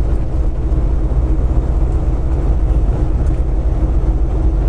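Semi-truck engine and road noise heard inside the cab while driving: a steady, even low rumble with a faint constant hum.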